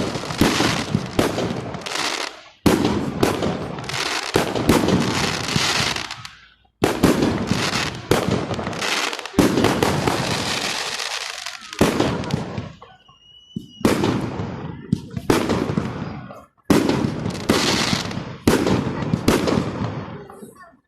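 Aerial fireworks salute: shells bursting in repeated bangs, each followed by crackling, in several bouts. A short whistle partway through.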